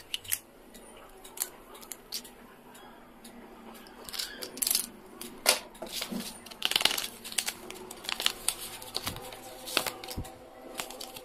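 Small plastic stationery items and their packaging being handled: irregular light clicks and taps of plastic caps and erasers, with louder bursts of crinkling plastic about four seconds in and again near the middle.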